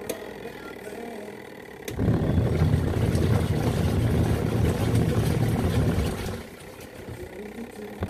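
Kuppet twin-tub portable washing machine's wash motor running, the pulsator churning water and clothes. A low rumble starts with a click about two seconds in and stops about four seconds later, with a quieter hum before and after.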